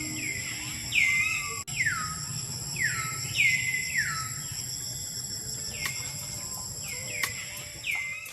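A bird calling repeatedly with short, quick downward-sliding whistled notes, about one or two a second, some ending lower than others, over a steady high-pitched insect drone.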